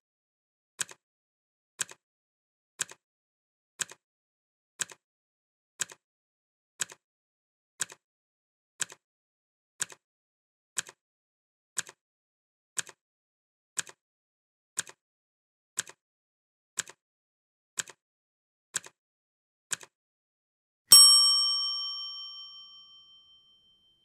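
Clock ticking steadily once a second, each tick a quick double click, for about twenty seconds. Then, after a one-second gap, a single bright bell ding rings out and fades over a couple of seconds, signalling that the countdown timer has finished.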